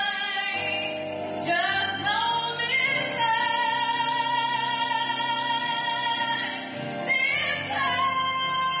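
A woman singing an inspirational Christian song into a handheld microphone, over instrumental accompaniment. She slides up into one long held note in the middle, then swoops up again near the end.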